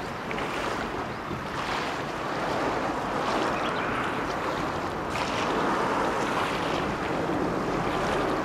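Steady wind and small waves on a lake: a constant rushing hiss with no pitch, swelling slightly a few seconds in.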